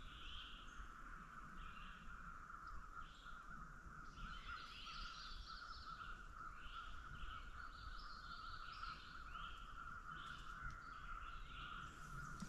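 Quiet woodland ambience: distant crows cawing on and off over a steady, high-pitched background chorus.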